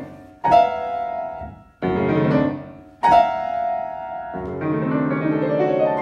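Grand piano played loudly: four phrases, each opening with a sharp accented attack, with heavy low left-hand chords under ringing higher notes. The passage is played again with the left-hand accents made bigger.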